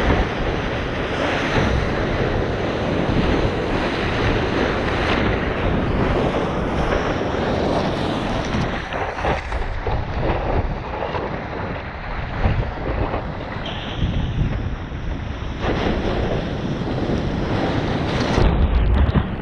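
Rushing ocean water with heavy wind buffeting the microphone, a dense, uneven noise that swells and dips in gusts.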